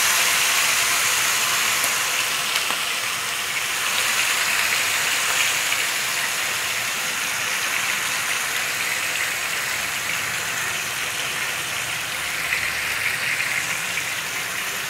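Marinated beef steaks sizzling steadily in a hot ridged grill pan, frying on medium heat.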